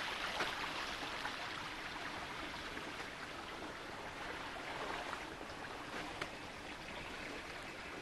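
Quiet, steady rush of running water, the snowmelt in a thawing forest flowing over the ground.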